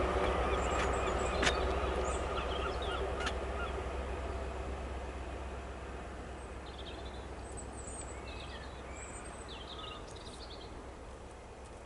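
Low diesel rumble of a High Speed Train's Class 43 power car, fading steadily, with a couple of sharp clicks in the first few seconds. Small birds chirp from about six seconds in.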